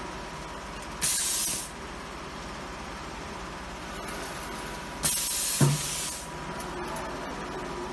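Pneumatic heat press cycling: two short blasts of air hiss from its cylinder, about a second in and about five seconds in, as the heat platen moves. The second blast comes with a low clunk as the platen seats. A faint steady tone runs underneath.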